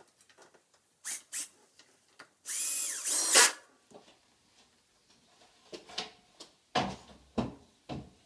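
Power drill fixing a wooden French cleat batten to the wall: two short trigger blips, then a run of about a second with the motor's pitch rising and falling. Later come several wooden thumps and knocks as the wooden shelf unit is hung onto the cleat.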